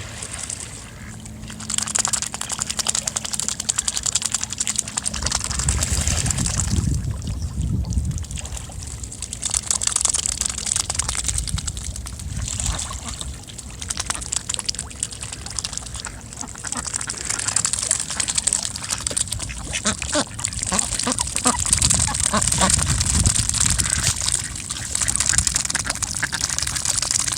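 Swans calling, a busy run of waterfowl sounds that swells and fades over the stretch.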